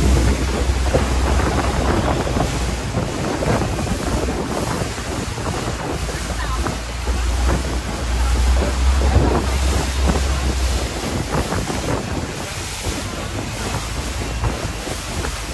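Wind buffeting the microphone in gusts over the steady rush of water along the hull of a longtail boat under way.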